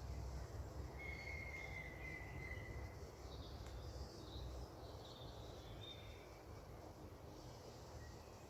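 Birds calling faintly outdoors: a drawn-out whistled note about a second in, then scattered short chirps, over a low steady background rumble.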